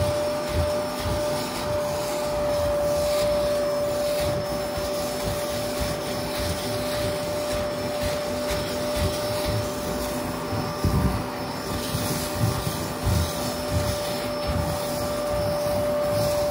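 Kärcher carpet-cleaning vacuum running steadily with a constant whine. Irregular low bumps and rubbing come from the nozzle working the carpet, with a few louder knocks past the middle.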